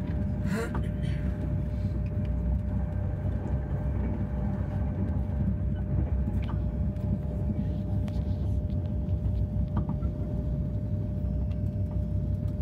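Passenger train running at speed, heard from inside the carriage: a steady low rumble with a faint constant hum.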